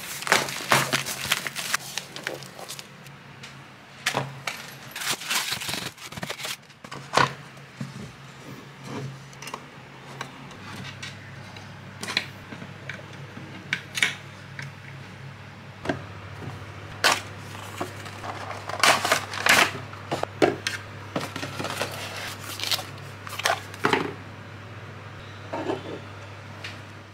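Hands unpacking a cardboard box and assembling a small white particleboard shelf with a hand screwdriver: scattered clicks, taps and knocks of cardboard, panels and tool. A steady low hum runs underneath.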